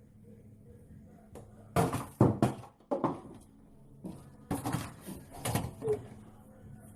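A run of knocks and thumps in two clusters, a few sharp hits close together about two seconds in and again about four and a half seconds in, as things are handled and set down close to the microphone.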